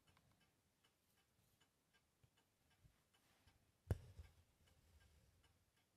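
Near silence with faint, fairly even ticking, and one sharp tap about four seconds in.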